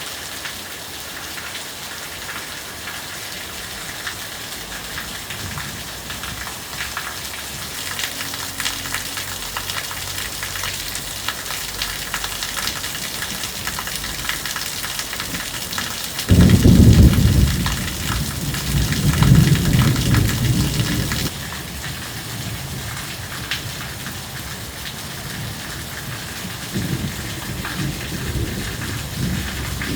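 Heavy downpour with a steady rain hiss. About sixteen seconds in, a sudden loud, deep rumble of thunder starts and lasts about five seconds before cutting off.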